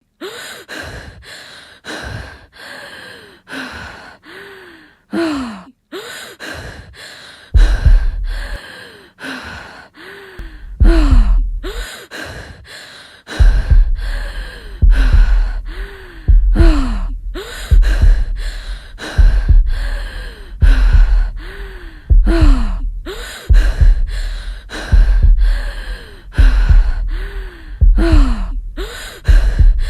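Edited, looped breathing sound effect: short voiced gasps and sighs, each with a falling pitch, cut together and repeated about every second or so. About seven seconds in, a heavy deep rumble is added under each one and it gets much louder.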